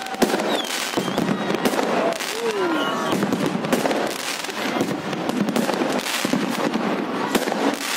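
Aerial fireworks display, with shells bursting overhead: many bangs in quick succession over a continuous crackle.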